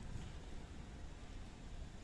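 Faint steady outdoor background noise: a low hiss and rumble, with no distinct sound standing out.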